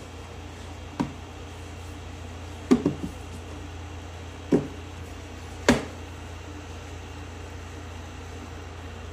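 A steady low hum with sharp clicks or knocks: one about a second in, three in quick succession near three seconds, one at about four and a half seconds, and the loudest near six seconds.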